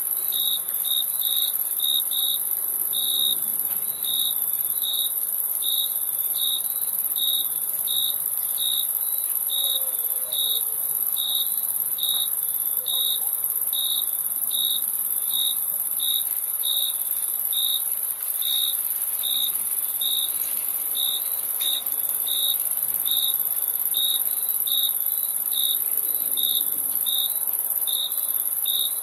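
Crickets chirping: evenly spaced short chirps at a little over two a second, over a constant high-pitched trill.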